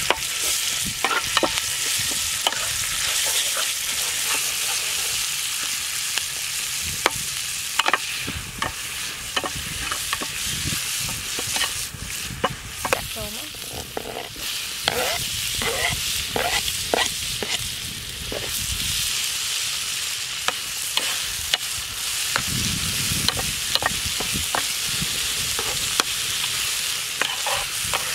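Garlic, chilli paste and basil leaves sizzling in oil in a metal pan over a wood fire, with a metal spatula scraping and clicking against the pan as the food is stirred. About halfway through, chopped tomatoes are scraped into the pan from a chopping board.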